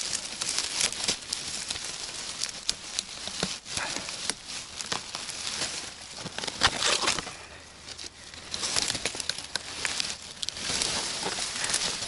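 Dry reed stems rustling and crackling as a hand pushes them aside, with irregular small snaps and clicks; loudest about seven seconds in.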